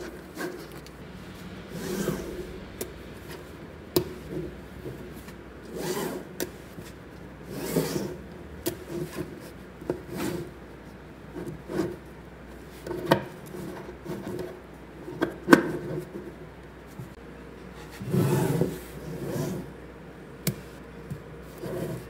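Small magnetic balls being handled: sheets of balls slid and rubbed between the fingers and against the table, with sharp clicks now and then as balls snap together.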